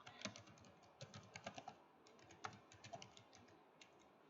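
Faint typing on a computer keyboard: quick runs of key clicks, with a short break about two seconds in, falling quiet near the end.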